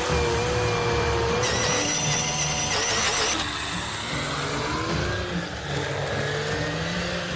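Engines of heavy machinery running under load, a dense mechanical noise with a wavering whine. The sound changes abruptly about a second and a half in and again about three and a half seconds in.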